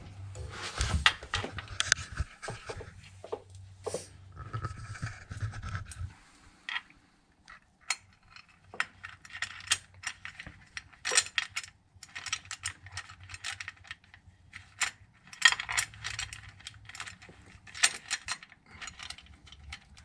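Ratcheting wrench clicking in short quick runs with metal clinks, as transmission pan bolts are turned to mount a shifter-cable bracket. A low hum sits underneath for the first few seconds and again later.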